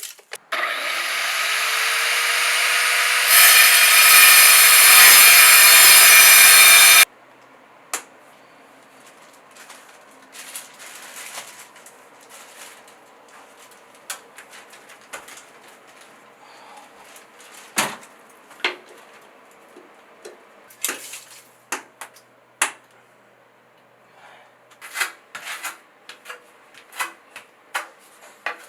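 A power tool spins up with a rising whine, runs loudly for about six seconds (louder from about three seconds in), then cuts off suddenly. It is followed by scattered taps and light scraping, as of hand work on wood.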